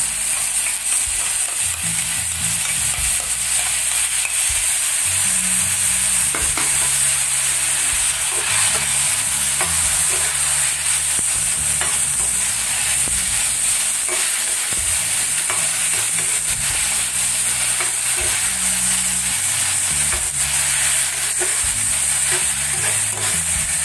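Onions and tomato puree sizzling in hot oil in a stainless steel frying pan, a steady hiss, while a metal spatula stirs and scrapes the mixture around the pan.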